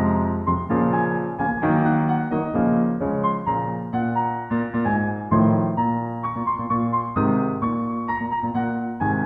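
Background music: a solo piano playing a steady run of notes, each struck note ringing and fading.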